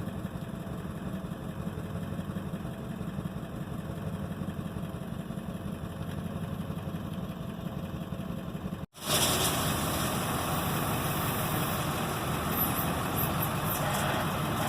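A vehicle engine idling steadily with a low hum. About nine seconds in, the sound cuts to a louder engine running, with more hiss.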